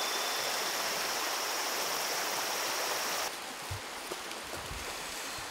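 Shallow stream rippling over stones: a steady rush of running water. About three seconds in it cuts off abruptly to a quieter background of flowing water with a few soft low thuds.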